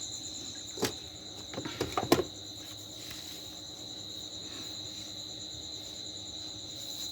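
Steady high-pitched trilling of crickets, with a few light knocks and clicks about one and two seconds in.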